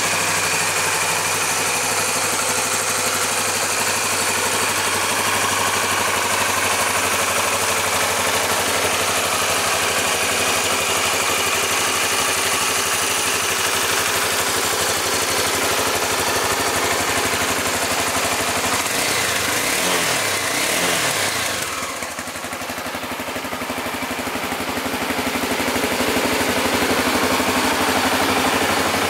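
Honda CBF250's single-cylinder four-stroke engine idling steadily. The pitch wavers and the level dips briefly about two-thirds of the way through.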